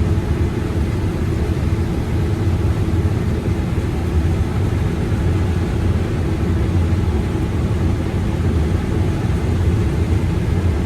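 Combine harvester running steadily while harvesting corn: a constant low engine drone with an even hum and no changes.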